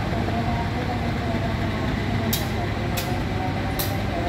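Diesel-electric locomotive idling with a steady low engine rumble. Three short, sharp hisses come about two and a half seconds in, then twice more within the next second and a half.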